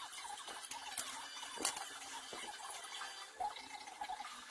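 Plastic parts bags rustling and small plastic kit parts clicking as a Tamiya Mini 4WD kit is handled, with sharp clicks about a second and a half in and again near the end. Wavering, bending tones sound faintly in the background.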